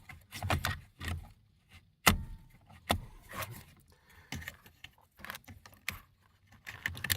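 Irregular plastic clicks, taps and rattles of a replacement turn signal switch being slid into place on a steering column, the sharpest click about two seconds in.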